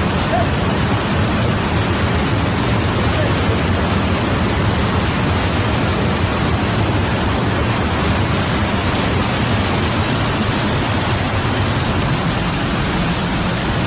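Torrential rain pouring down, a loud, steady hiss without a break.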